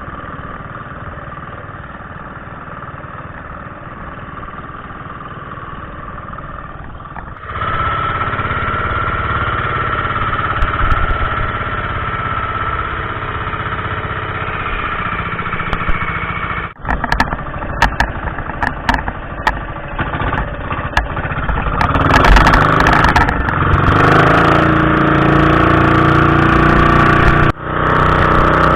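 Motorized fishing bangka's engine running steadily, loud and close. The sound changes abruptly in level twice, about a quarter and about halfway through, and again near the end, with scattered clicks and knocks in the middle.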